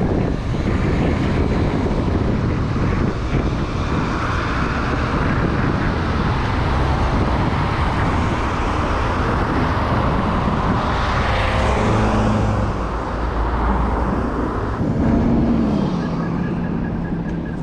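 Road traffic noise heard from a moving bicycle, with wind rushing over the microphone. A faint pitched hum comes in around twelve seconds and dips in pitch about fifteen seconds in.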